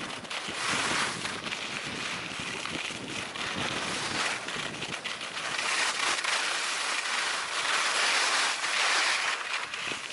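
Skis sliding and carving over packed snow, a continuous hissing scrape that swells and eases with the turns, mixed with wind noise on the microphone.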